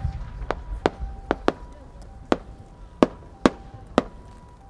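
Sharp firework cracks, about eight at irregular intervals, from the rising effects of a ten-inch aerial shell as it climbs on its trail before bursting.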